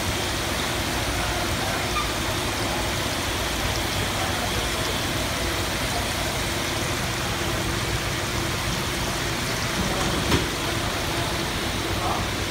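Steady rushing and bubbling of water in aerated live-seafood tanks, with a low steady hum underneath and a single knock about ten seconds in.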